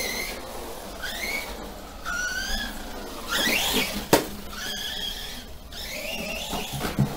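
Brushless electric motor of a Remo Hobby Dinosaurs Master 5 RC monster truck, running on a 3S battery, whining in short bursts as the throttle is blipped, the pitch mostly rising with each burst. A sharp knock comes about four seconds in.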